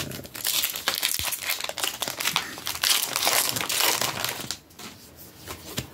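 Foil wrapper of a Pokémon Scarlet & Violet—151 booster pack crinkling as it is handled and opened: dense crackling for about four and a half seconds, then quieter near the end.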